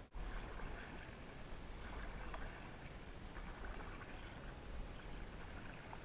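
Water lapping and splashing against a fishing kayak's hull, with a steady low rumble of wind on the microphone.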